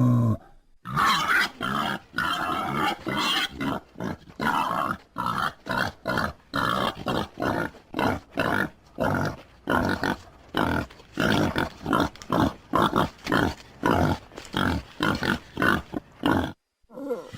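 Wild boar grunting in a fast, steady series of short grunts, about two to three a second, with a brief pause near the end.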